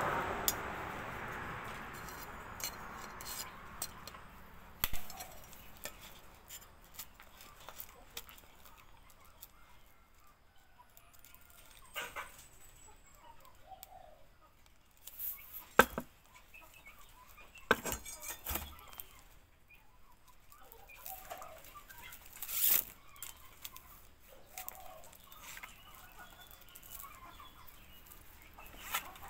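Scattered clicks, taps and knocks from hand work on a small grass broom: a blade scraping and chopping at the wooden handle at first, then plastic strapping being wound and tugged around the head.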